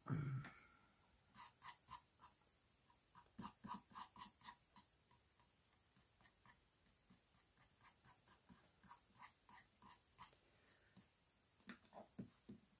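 Near silence with faint, scattered small ticks and taps from fingers working paste onto an embossed cardboard box roof.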